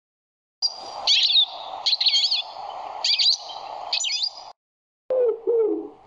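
Goldfinch singing in four quick phrases of high, twittering, gliding notes over faint background noise. After a short gap near the end, a pigeon starts cooing in low notes.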